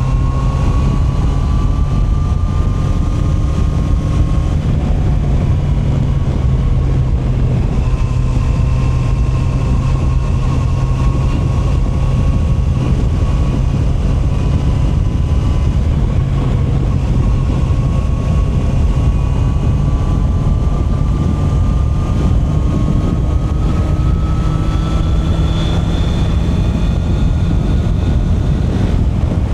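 Honda CB650R's inline-four engine running steadily under way, its pitch climbing slowly and dropping back a few times, over a constant low rumble.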